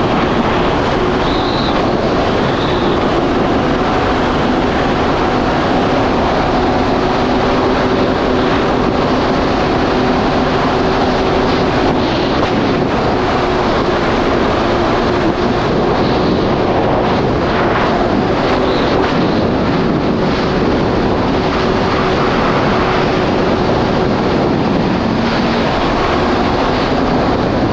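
Yamaha GP1800R SVHO jet ski's supercharged 1.8-litre four-cylinder engine running at a steady pace under way. It sits under a loud, even rush of wind on the microphone and water.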